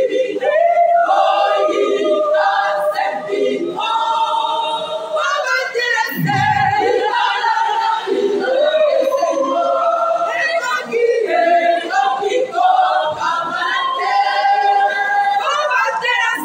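Women's church choir singing together, many voices in harmony, with long held notes.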